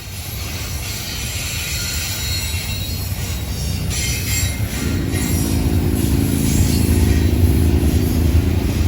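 Intermodal freight train rolling past: a steady low rumble that grows louder, with a humming tone joining about halfway through.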